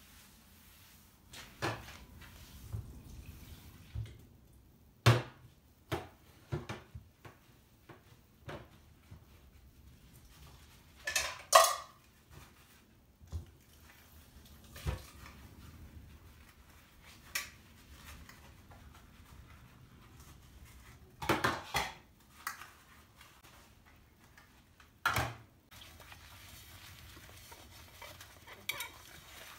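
Dishes and pans being handled and washed at a kitchen sink: scattered separate knocks and clinks, with a louder ringing clank a little before halfway and a quick cluster of knocks about two thirds of the way in.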